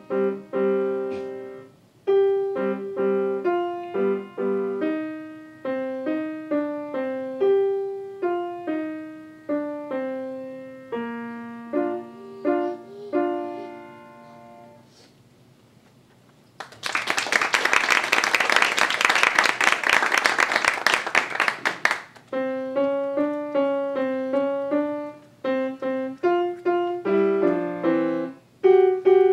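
Grand piano played by a young student: a short piece ends on a low held note that fades away, the audience applauds for about five seconds, and then the next piece starts on the piano.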